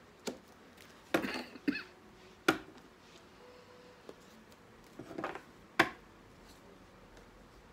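A deck of tarot cards being handled on a tabletop: a few sharp taps and knocks with short bursts of clatter between, the loudest knocks about two and a half seconds in and near six seconds.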